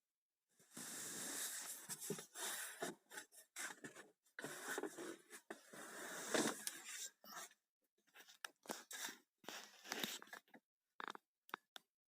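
Scraping, rustling and clicking of gearbox parts being handled during reassembly of the selector-rod detents. A long stretch of continuous scraping is followed by scattered short clicks and scrapes.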